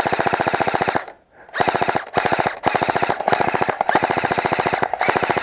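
Airsoft rifle firing on full auto close by: a rapid, even rattle of about fifteen shots a second, broken into several bursts of about half a second to a second each with short pauses between.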